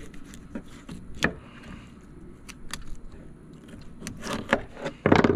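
Knife cutting behind a flounder's head against a cleaning board: scattered clicks, crunches and scrapes as the blade works through flesh and bone, with a louder burst about five seconds in.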